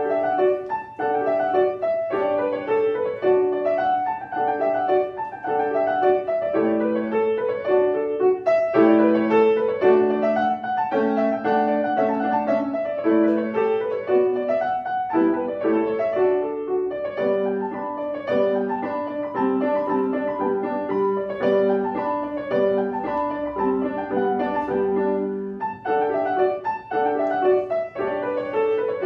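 Grand piano played solo: a continuous flow of separate notes, mostly in the middle register, with a short pause near the end before the playing picks up again.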